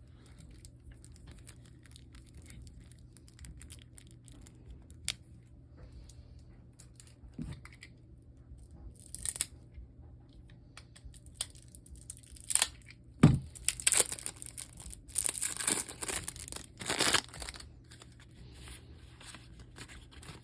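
Plastic packaging being torn and crinkled while board game cards and pieces are unpacked, with scattered light taps. The rustling comes in short bursts, busiest a little past halfway, where a sharp knock is the loudest sound.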